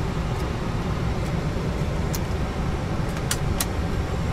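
Steady low rumble of Boeing 737 cockpit noise on the ground after pushback, with a few faint clicks.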